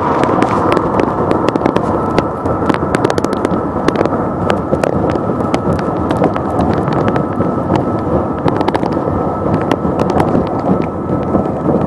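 Steady road rumble inside a moving car's cabin, with many sharp clicks and crackles over it.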